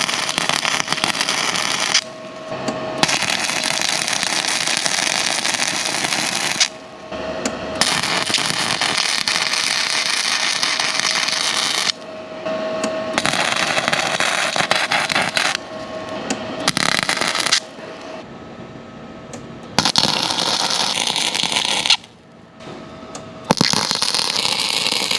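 Electric arc welder's crackling arc laying beads on steel, in bursts of a few seconds that stop and restart about seven times.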